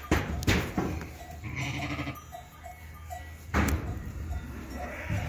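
A sheep bleats once, about one and a half seconds in, while hoof shears cut at a sheep's hoof. The cuts are sharp clicks, the loudest near the start and about three and a half seconds in.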